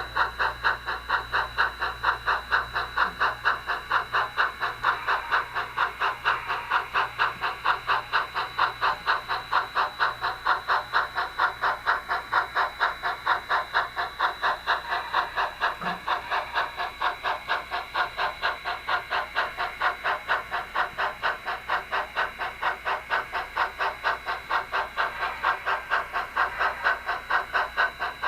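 Model train running through the layout: a steady, even rhythmic pulse about three to four times a second, with a thin steady high tone under it.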